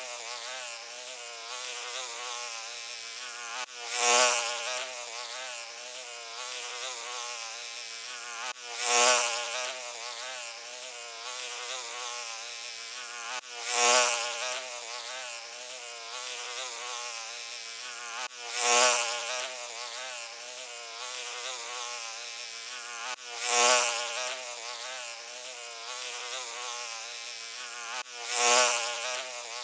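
A fly buzzing continuously, its pitch wavering, swelling briefly louder about every five seconds.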